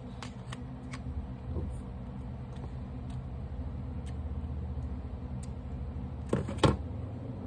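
Plastic clicks and scrapes of a Samsung phone's back cover being pried off and its battery compartment handled, over a steady low hum, with a sharp double click about six and a half seconds in.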